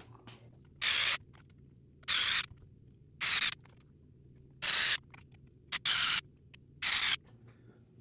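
Small electric screwdriver driving screws into a 3D-printed plastic trailer brace: six short bursts, about one a second, one for each screw.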